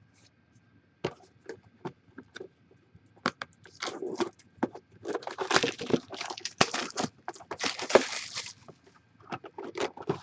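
Plastic shrink wrap crinkling and tearing as it is stripped off a cardboard trading-card box, with scattered taps and scrapes of the box on a wooden table. The crinkling comes in rustling stretches from about four seconds in until near the end.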